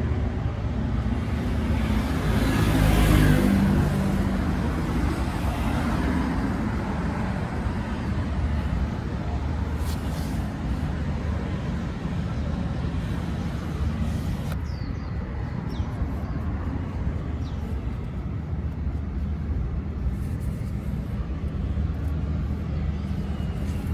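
Road traffic going by, with one vehicle passing louder about three seconds in, over a steady low hum.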